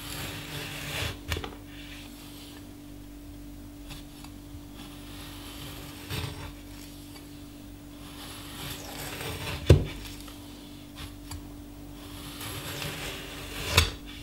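A large forged cleaver-style kitchen knife slicing through a lemon. Each stroke is a short scrape of the blade through peel and flesh, ending in a knock on the wooden cutting board. There are four cuts, the loudest about ten seconds in, over a steady low hum.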